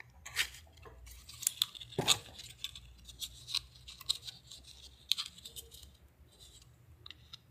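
Hard plastic Kydex sheath and a small metal tomahawk being handled: an irregular scatter of light clicks and taps, the loudest about two seconds in.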